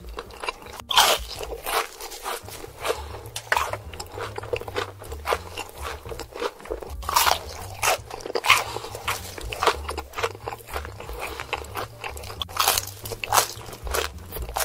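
Crispy fried chicken being bitten and chewed: a steady run of loud, crackly crunches, with a few sharper bites standing out, as in an ASMR eating sound effect.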